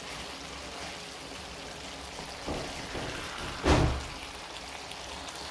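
A pan of potato and carrot stew simmering with a steady bubbling hiss, while a wooden spoon stirs and knocks against the pan a few times, loudest a little past halfway.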